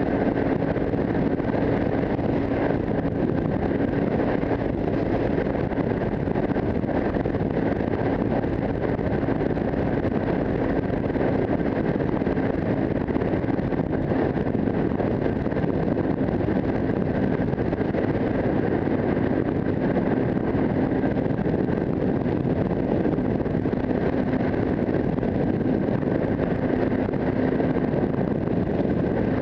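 AKT 250 Adventour (Zongshen RX3) motorcycle's single-cylinder engine running steadily at highway cruising speed, its hum holding one pitch, under heavy wind noise on the bike-mounted microphone.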